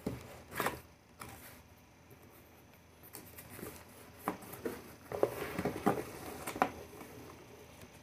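Cardboard product box being opened and handled by hand: scattered scrapes, taps and rustles of cardboard and packaging, busiest about five to seven seconds in.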